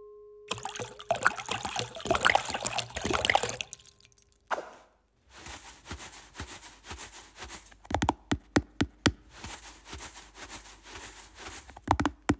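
Kitchen sounds at a mixing bowl: a ringing strike dies away, then rustling and clatter as something is poured into the bowl and stirred. In the second half the stirring goes on more softly under a run of sharp knocks.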